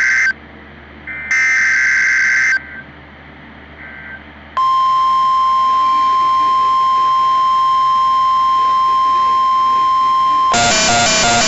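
Emergency Alert System SAME data bursts, short shrill buzzing digital tones: one ends just as the sound begins, a second lasts about a second, and a faint third follows. About four and a half seconds in, a steady single-pitched weather-radio alert tone near 1 kHz starts and holds for about six seconds. Near the end it is cut off by loud electronic music with a steady beat.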